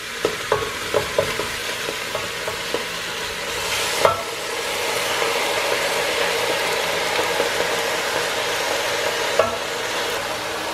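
Spatula scraping and tapping sautéed vegetables out of a frying pan into a hot pressure cooker, over a steady sizzle of food frying in the pot. A few light taps come at the start, a sharp knock about four seconds in and another near the end, and the sizzle grows louder from about four seconds on.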